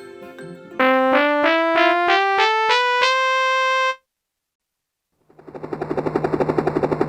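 Casio Casiotone SA-46 mini keyboard playing a quick rising run of about ten notes that ends on a held top note, which cuts off suddenly. After a short silence, a fast, pulsing, noisy pattern over a steady low tone begins.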